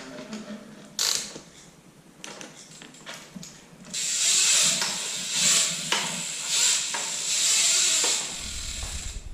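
Light metallic clicks as a BMX chain is fitted, then about four seconds of fast, hissy ratcheting from the bike's drivetrain, swelling about once a second.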